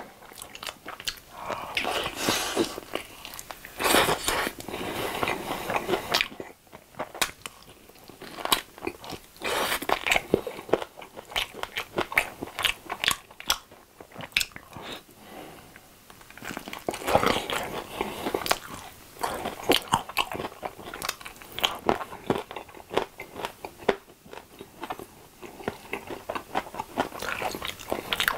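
Close-miked biting and chewing of a sauce-glazed fried chicken drumstick, with many short, irregular mouth clicks and denser bursts as the meat is bitten off and chewed.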